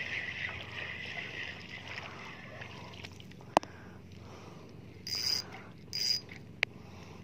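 Deukio 2000-series spinning reel whirring as line is cranked in on a hooked fish, fading out after about two and a half seconds. Then a single sharp click and two short splashy bursts.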